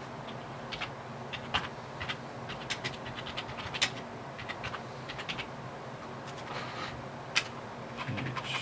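Typing at a computer keyboard: irregular keystrokes and clicks, two of them louder, over a low steady hum.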